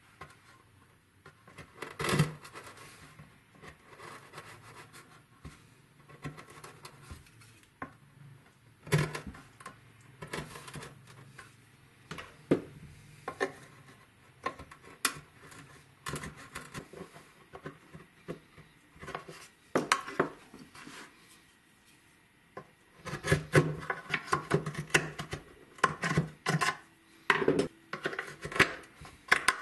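A narrow chisel scraping and chipping wood out of a slot-shaped lock mortise: irregular scrapes and sharp clicks, coming thicker and faster near the end.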